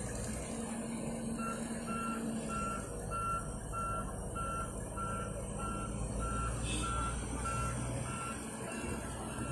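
Volvo excavator's motion alarm beeping evenly, about twice a second, starting a little over a second in, over the low rumble of the machine's diesel engine.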